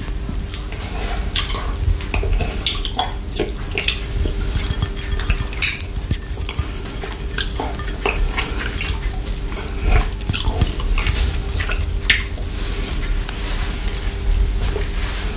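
Close-miked wet mouth sounds of a chocolate lollipop with whipped cream being licked and sucked: an irregular run of quick wet clicks and smacks over a steady low hum.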